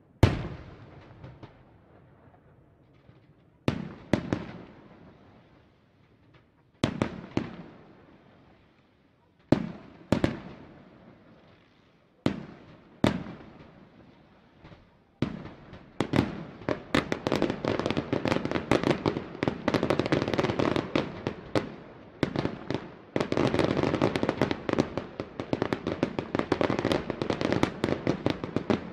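Aerial firework shells bursting: single sharp bangs every couple of seconds, each followed by an echo. About halfway through they give way to a dense, rapid volley of many small reports that keeps going to the end.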